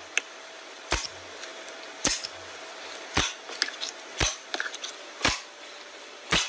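Glossy blue slime in a tub being poked and pressed with fingers, giving sharp popping clicks about once a second, with fainter crackles between them.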